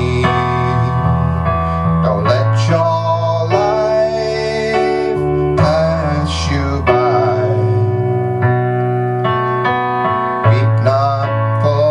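Keyboard playing piano chords, held and changing every second or two, in a slow instrumental passage of a ballad.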